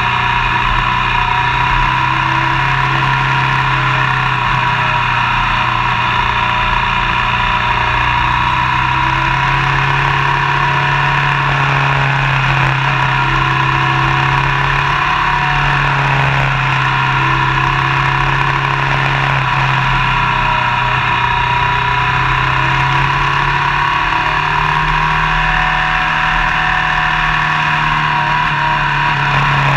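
Motorcycle engine running at a steady cruise, with heavy wind and road noise over the microphone; the engine note rises and falls slightly a few times.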